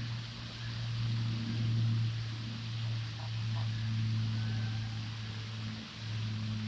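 Steady low hum of a distant engine or motor, wavering slightly in level and dipping briefly about six seconds in, over a constant outdoor hiss.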